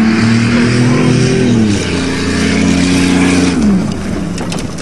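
1994 Buick's 3.8-litre V6 running hard at full throttle across a dirt field, its pitch holding and stepping, then dropping as the car passes close. Tyre and dirt noise with a few sharp ticks of thrown stones follow near the end.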